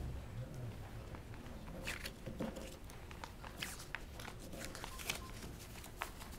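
Scattered soft knocks, clicks and rustling in a quiet room, like footsteps and the handling of things at a lectern.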